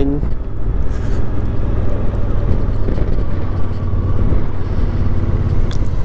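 Suzuki V-Strom motorcycle engine running steadily while riding at road speed, with a rush of wind and road noise on the microphone.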